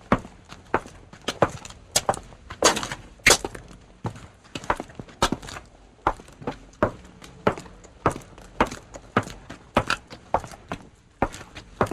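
Footsteps: a steady run of sharp heel-and-sole impacts, about two steps a second, some steps louder than others.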